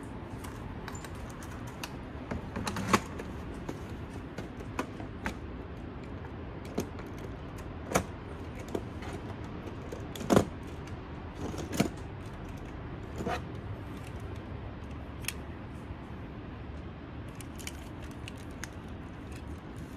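Scattered sharp clicks and light clinks of small hard toys being picked up, turned over and set down, about a dozen at irregular intervals, over a steady low background noise.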